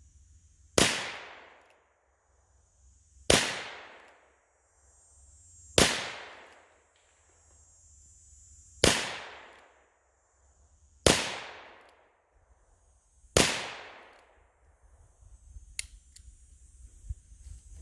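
Rossi .357 revolver firing six .38 Special rounds, one at a time, about two to three seconds apart. Each sharp shot is followed by about a second of fading echo.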